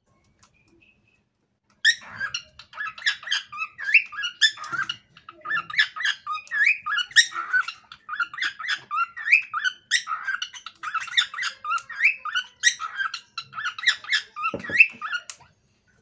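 Cockatiel singing: after a couple of seconds of quiet it starts about two seconds in, with a fast, unbroken string of short chirps and quick rising whistled notes that runs until just before the end.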